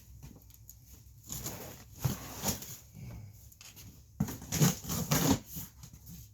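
Cardboard shipping box being handled and opened: irregular rustling and scraping with a few knocks, loudest in bursts near the middle.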